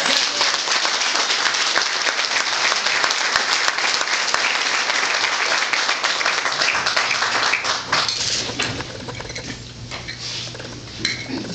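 Room of people applauding, a dense patter of many hand claps that thins out after about eight seconds to a few scattered claps.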